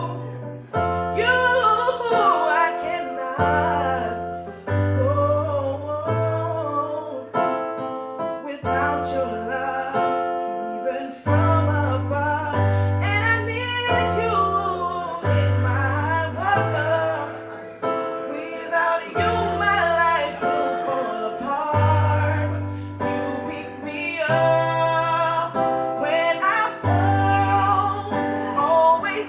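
A song: a woman's voice singing a wavering melody over held keyboard chords and a bass line that changes note every second or two.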